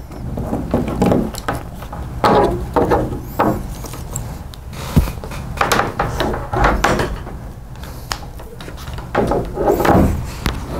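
Cables, plastic plugs and a power adapter being handled and connected on a tabletop: rubbing and rustling with scattered clicks and knocks, the sharpest knock about halfway through.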